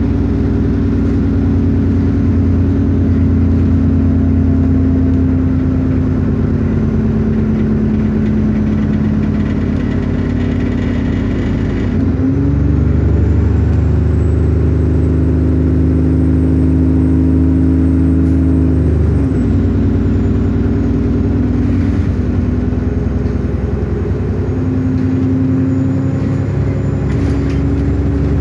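Steady engine and drivetrain hum of a Go-Ahead London Metrobus double-decker bus (fleet E213) on the move, heard from inside the passenger cabin. About twelve seconds in the engine note shifts in pitch, and it shifts back about seven seconds later.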